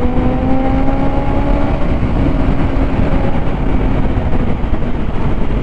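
Motorcycle engine accelerating while riding, its pitch rising over the first couple of seconds and then holding, under heavy wind rush on the microphone.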